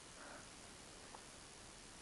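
Near silence: a faint steady hiss, with one tiny tick about a second in.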